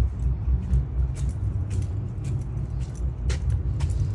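Footsteps on a concrete sidewalk, a sharp step about every half second, over a strong, uneven low rumble.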